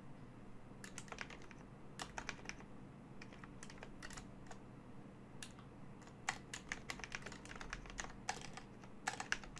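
Typing on a computer keyboard: irregular runs of quick keystroke clicks with short pauses between them, starting about a second in, over a faint steady low hum.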